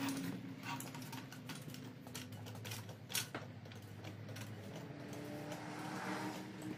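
Hydraulic floor jack being set and worked under a car: a run of irregular clicks and clacks from its handle and mechanism, over a faint steady hum.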